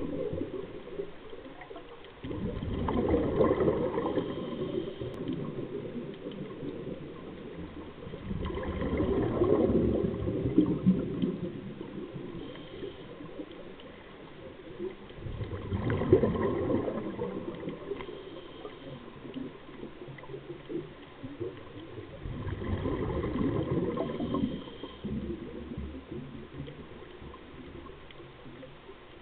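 Scuba diver's exhaled bubbles gurgling out of the regulator, heard from underwater: four long bubbly exhalations about every six to seven seconds, with quieter water noise in between.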